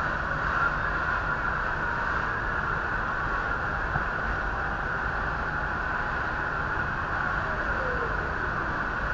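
Steady noise of airport fire engines running beside a burning airliner, with the fire and their pumps blending into one even din. A faint tone glides down and then back up near the end.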